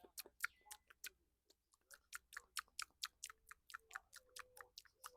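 Close-miked wet mouth and finger-licking sounds: a quick, even run of sharp smacking clicks, about five a second.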